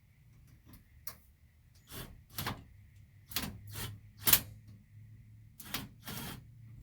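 Irregular sharp knocks and clacks of hardware being handled during a wood stove chimney install, about eight of them, the loudest a little past the middle, over a low steady hum.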